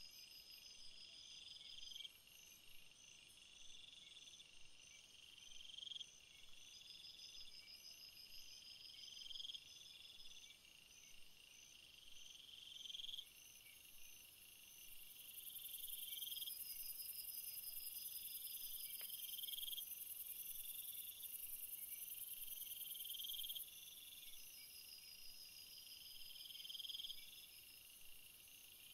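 Insects chirring in the woods: cricket-like trills that repeat every couple of seconds, each swelling before it stops, with a thinner pulsing trill above them. A high steady hiss joins for several seconds around the middle.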